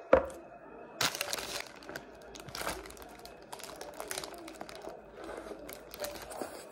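Paper burger wrapper crinkling and rustling in many short bursts as it is peeled back and handled, after a single sharp knock right at the start.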